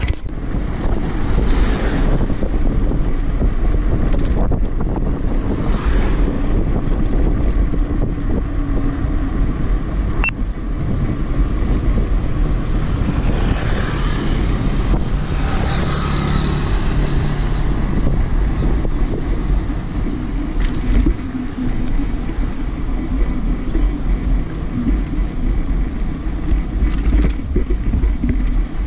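Continuous rumbling outdoor noise of riding along: wind buffeting the microphone with road and vehicle noise, heaviest in the low end and with no let-up.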